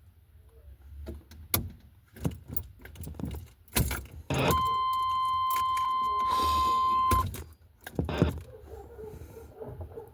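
Keys jangling and clicking in the 1988 Chevy Suburban's ignition lock. About halfway through, a steady electronic warning tone sounds for a little under three seconds and cuts off sharply, followed by a click. The tone shows the newly fitted ignition switch is bringing power to the truck.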